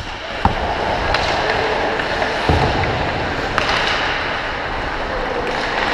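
Hockey skates scraping and gliding on rink ice, a steady rough hiss, with a few sharp clicks of stick or puck on the ice.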